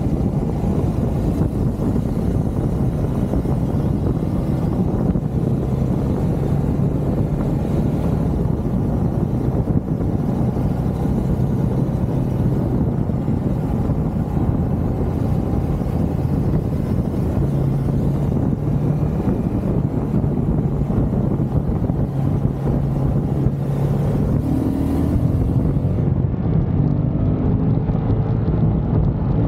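Motorcycle engine running while riding along at road speed, mixed with heavy wind noise on the microphone. The engine note steps in pitch a couple of times and rises briefly near the end.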